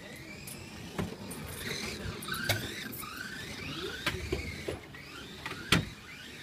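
Electric motors of Kyosho Mini-Z RC cars whining, rising and falling in pitch as the cars speed up and slow down. A few sharp knocks come through, the loudest near the end.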